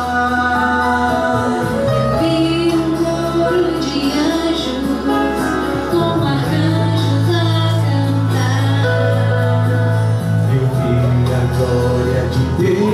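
A song with singing over long held bass notes.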